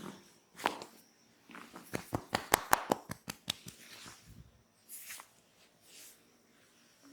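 Hand massage strokes on a person's back: a single sharp slap, then a fast run of about ten sharp tapping strikes over about a second and a half, followed by two soft brushing sounds of hands sliding over skin.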